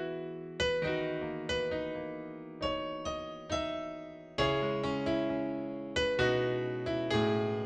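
Background music: electric piano playing a gentle melody of struck notes, each fading away before the next.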